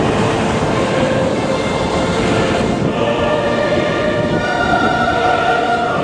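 Steady roar of heavy storm surf crashing, mixed with music of held, choir-like chords that stand out from about halfway through.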